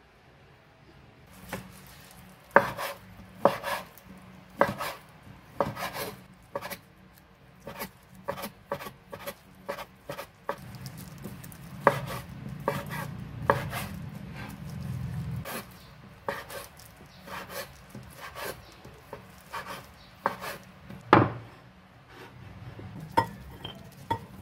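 Kitchen knife slicing boiled pork belly on a wooden cutting board, the blade knocking on the board in irregular strokes, about one or two a second.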